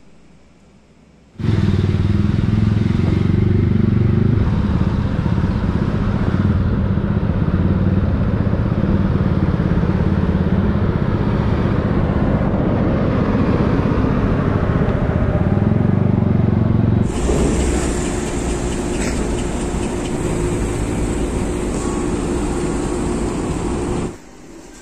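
Vehicle engine running, a loud steady low rumble that starts abruptly about a second and a half in. About two-thirds of the way through it gives way to a quieter steady hum with a held low tone, which drops away just before the end.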